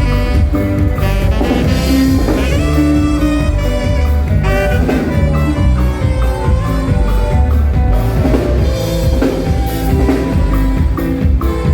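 Norteño band playing a polka live: a saxophone lead over bass and a drum kit keeping a fast, steady beat.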